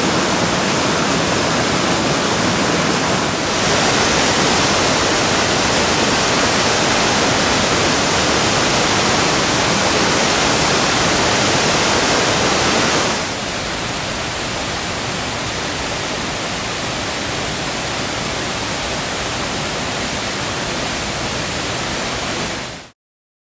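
Zigzag River's mountain stream water rushing over logs and small waterfalls in a steady wash of noise. It grows louder about three and a half seconds in, drops back about thirteen seconds in, and cuts off abruptly just before the end.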